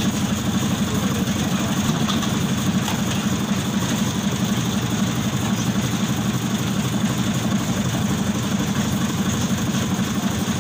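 An engine running steadily at an even speed, with a dense low chugging rumble that does not change.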